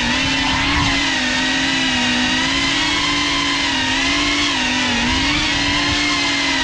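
GEPRC CineLog 35 cinewhoop's brushless motors and ducted propellers buzzing in flight, a steady pitched drone with several overtones whose pitch wavers gently up and down as the throttle changes.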